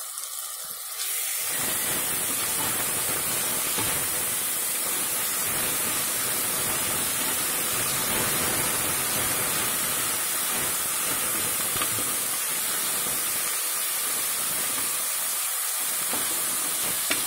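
Sliced onions with spice paste frying in oil in a pressure cooker pan, a steady sizzle that comes up about a second and a half in, as a spoon stirs them through.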